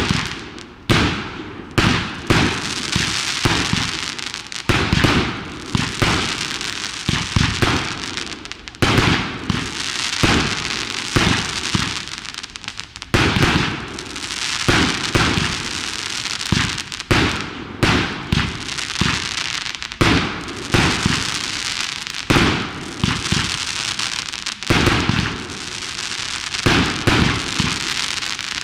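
Aerial fireworks display: shells bursting with sharp bangs in quick, irregular succession, one to several a second, with a steady crackling hiss between them.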